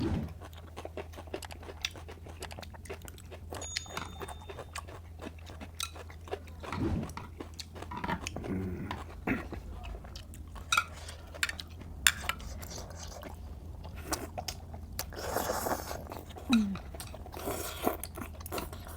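Close-up chewing and biting of cooked octopus: wet, sticky mouth clicks throughout, with now and then a light clink of utensils on a dish.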